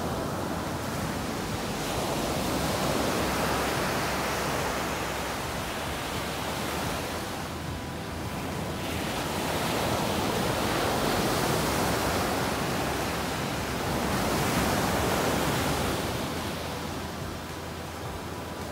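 Ocean surf breaking and washing up a sandy beach, a steady rushing that swells and fades every few seconds as each wave comes in.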